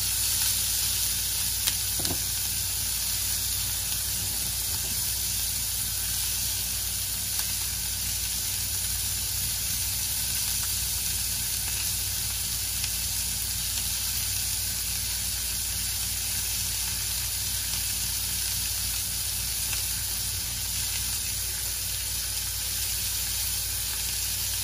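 Asparagus sizzling in butter and oil in a cast-iron skillet over medium-high heat, searing: a steady frying hiss. A faint click of metal tongs on the pan about two seconds in.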